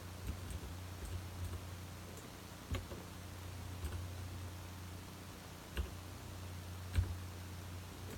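Mechanical keyboard with Cherry switches, keys pressed one at a time: a handful of separate, irregularly spaced clicks, the loudest about seven seconds in, over a steady low hum.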